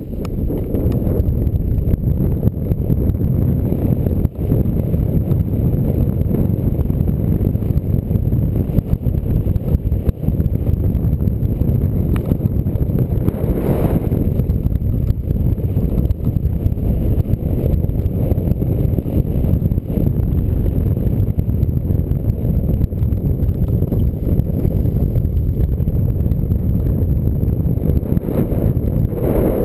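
Steady, heavy wind buffeting on an action camera's microphone, with a low rumble and rattle from moving fast downhill.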